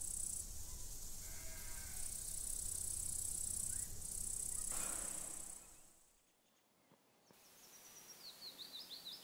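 Meadow ambience: a steady high hiss of insects chirring in the grass, with a short animal call about a second and a half in. The sound cuts off suddenly at a little after five and a half seconds, and after a moment of silence a bird begins a quick, repeated descending song.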